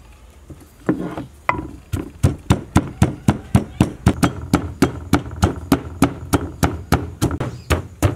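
Wooden pestle pounding galangal and kaffir lime leaves in a mortar: a steady run of dull knocks, about three a second, starting about a second in.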